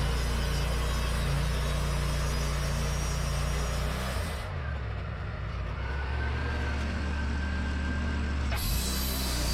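Wood-Mizer LT40 portable sawmill running, a steady engine drone with a low hum. Midway the higher hiss falls away for about four seconds, and a single click near the end brings it back.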